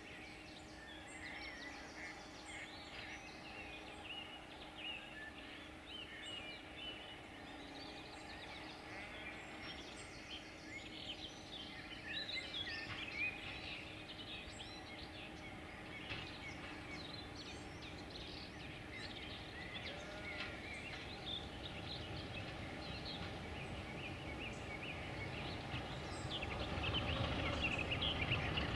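Many small birds chirping and trilling in a spring chorus over a faint steady engine hum from an approaching Class 33 diesel locomotive. The locomotive's low rumble grows louder over the last few seconds.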